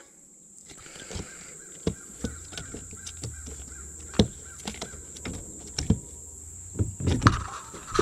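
Scattered light knocks and clicks of fishing tackle being handled against a plastic kayak as the line is gathered and the rod is picked up, over a low steady rumble.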